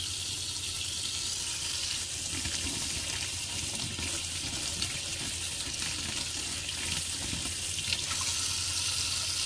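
Kitchen faucet running steadily, its stream pouring over a Keurig carbon water filter cartridge held in the hand and splashing into a stainless steel sink: the soaked filter being rinsed of its carbon dust.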